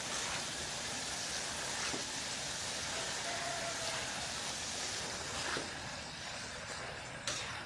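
Steady sizzling hiss of food frying in hot oil, with a few sharp pops near the end.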